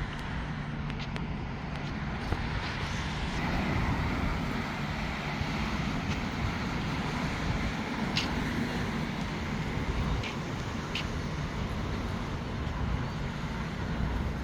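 Waves washing over a round-pebble (mongdol) beach: a steady rushing surf with a few sharp clicks of stones.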